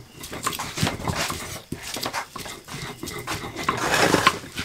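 Kitchen knives cutting vegetables on wooden cutting boards: irregular sharp knocks of the blade hitting the board. A denser, rough scraping noise builds near the end.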